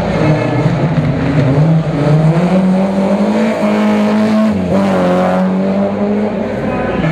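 BMW E30 M3 rally car's engine pulling hard at high revs, its pitch holding steady and then briefly dropping about four and a half seconds in, as at a gear change or a lift off the throttle, before settling again.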